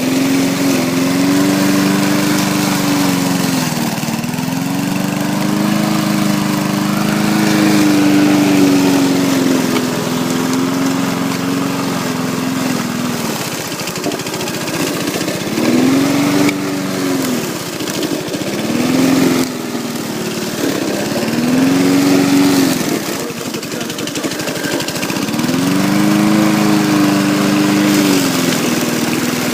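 Lawn mower engine running steadily, its pitch dipping and picking back up several times as the engine speed sags and recovers.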